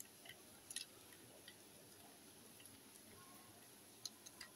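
A few faint clicks and taps of a plastic toy train engine being handled and turned over in the hands; otherwise near silence.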